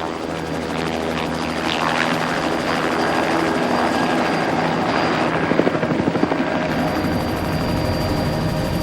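Light aircraft engine running steadily, a continuous drone with a fixed pitch that gets a little louder about two seconds in.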